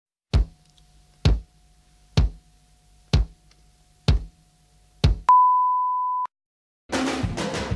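Intro sound effects: six deep booming hits, about one a second. Then a steady test-tone beep, the kind heard with TV colour bars, lasting about a second. After a short gap, loud music starts near the end.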